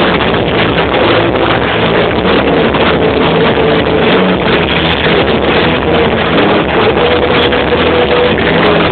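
Rock band playing live on drums, electric guitars and keyboard, recorded so loud that the sound is distorted into a dense wash, with held notes just showing through.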